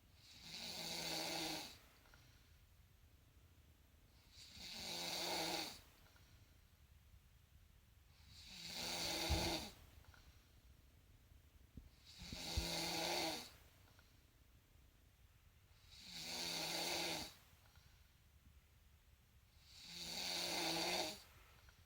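Snoring in slow, even breaths: six drawn-out snores, each about a second and a half long, come about every four seconds with quiet between them.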